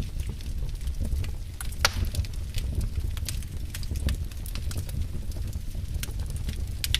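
Wood fire crackling in a fireplace: irregular sharp pops and snaps over a low, steady rumble of the flames, with a louder pop about two seconds in.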